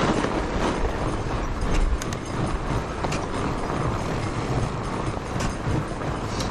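Fat-bike tyres rolling over packed snow on a bumpy trail: a steady crunching rumble, with the bike rattling and a few sharp clicks and knocks over the bumps.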